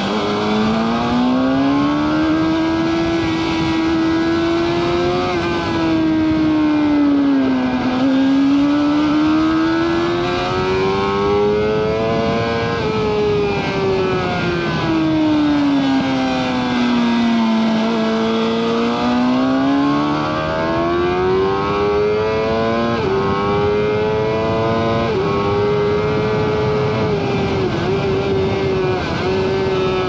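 Suzuki GSX-R 750 inline-four engine at full pace on a track lap. The revs climb for several seconds and fall away several times, then dip briefly three times near the end as it shifts up.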